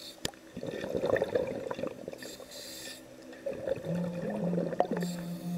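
Underwater scuba breathing: exhaled bubbles gurgling and crackling from the regulator, broken by short hisses about every two and a half seconds. A low musical note comes in about four seconds in.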